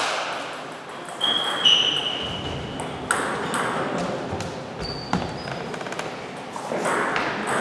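Table tennis balls clicking off bats and the table in quick irregular strokes during a doubles rally, with a few short high squeaks mixed in.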